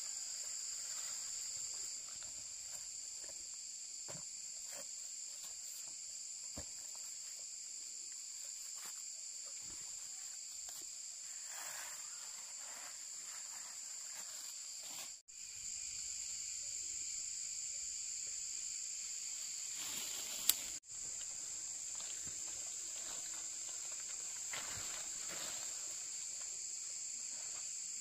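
Steady, high-pitched chorus of insects, with faint scattered taps and knocks underneath. The drone drops out briefly twice, about halfway through and again about two-thirds through, with a sharp click just before the second dropout.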